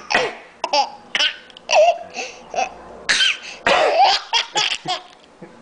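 A toddler laughing in short bursts mixed with forced, cough-like sounds: his own odd way of laughing.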